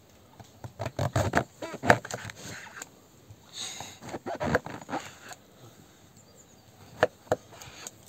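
Folding knife cutting through a firm porcini mushroom and knocking on a wooden cutting board: irregular clusters of short knocks, then two sharp taps close together near the end.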